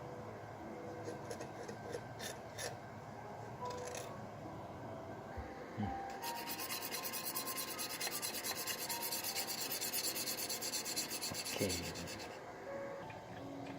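Rhythmic scrubbing of a humidifier part, about six strokes a second for some six seconds, after a few light handling clicks. Faint background music plays throughout.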